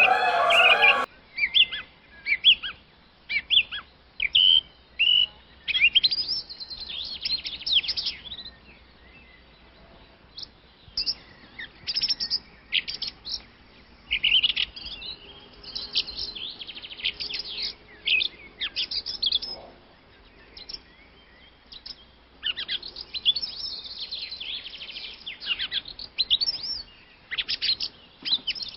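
Small birds chirping: many quick, high, sweeping notes in flurries, separated by short pauses.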